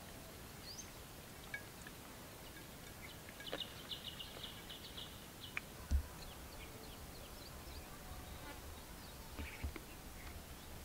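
Quiet open-air ambience with scattered short bird chirps and a brief run of high twittering in the middle. A single dull low thump about six seconds in.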